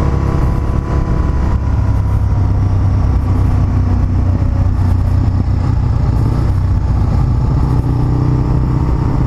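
Motorcycle engine running at a steady, even pitch while riding, heard from on board the bike.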